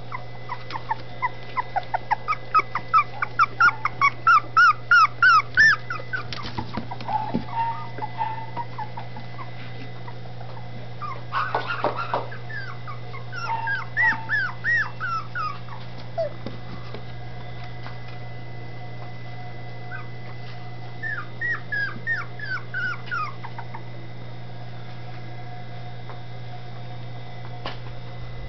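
Dachshund puppies whimpering in quick runs of short, high cries, several a second. The first run grows louder over several seconds, and two shorter runs come later. A steady low hum sits underneath.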